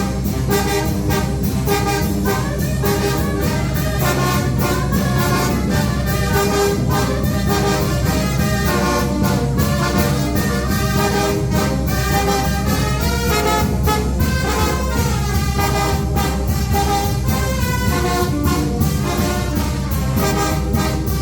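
Mexican banda de viento (brass band) playing, with trumpets and trombones carrying the melody over a steady percussion beat.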